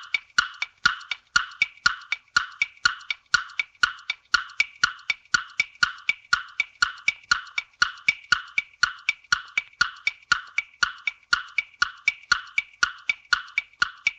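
A steady, even run of hollow wood-block-like knocks, several a second, each with a short ringing tone.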